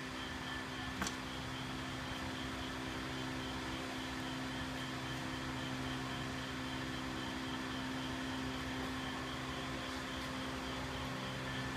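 Steady low electric motor hum from the animated cauldron-creep prop's stirring mechanism, with a faint high tone pulsing evenly above it. One soft click about a second in.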